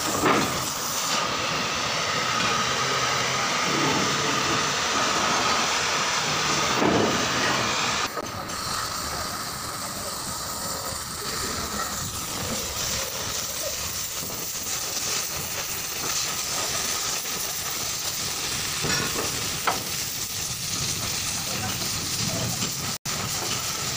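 Oxy-acetylene cutting torch cutting through steel plate: a steady hiss of the gas jet, slightly quieter from about eight seconds in, with a split-second break near the end.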